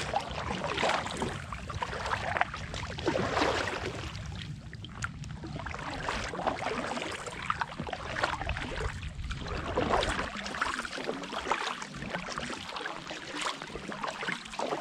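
Kayak paddle strokes in lake water: the blades dip and splash over and over, the water sound swelling with each stroke.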